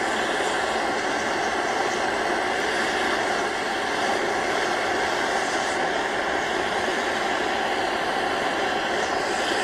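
Blowtorch flame hissing steadily, heating a seized brake caliper pin to free it.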